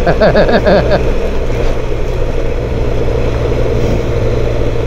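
Motorcycle engine running steadily under way, with road and wind noise. A person's voice is heard briefly in the first second.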